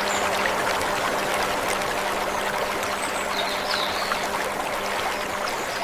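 Steady running water, a small stream trickling and splashing.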